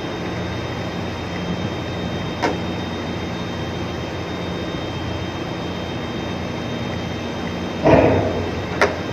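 Steady marine engine hum with a faint high whine, broken by a sharp knock about two and a half seconds in and a short, louder rush of noise near the end.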